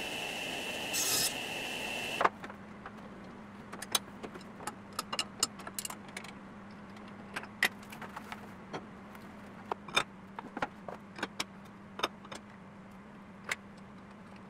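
A table saw running and ripping pine for about two seconds, stopping abruptly. Then sharp metallic clinks and clanks as the steel dado-stack blades and chippers are handled and fitted onto the saw arbor, over a low steady hum.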